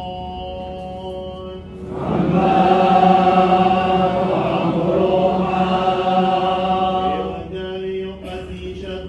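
Men chanting a liturgical melody before the Gospel reading, on long held notes. About two seconds in it swells as more voices join. After about five seconds it drops back to a single chanting line.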